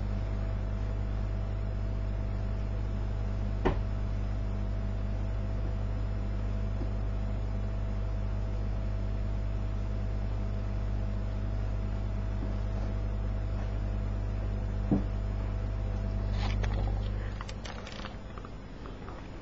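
Steady low electrical hum with a faint higher whine, like a computer running close to the microphone, broken by two single sharp clicks about four and fifteen seconds in. Near the end a burst of knocks and rustles from the camera being picked up and handled, and the hum falls away.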